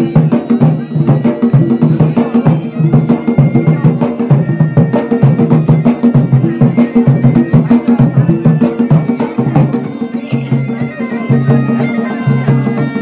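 Garhwali folk dance music: dhol and damau drums beating a steady rhythm under a droning wind instrument.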